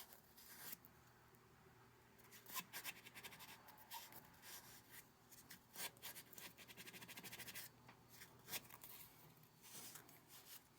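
Faint rubbing and scratching of a large cotton swab being worked into a snug fit, with scattered light clicks and a quick run of fast ticks about two-thirds of the way through.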